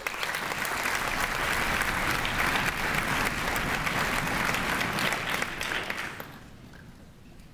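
Audience applauding in a hall, dying away about six seconds in.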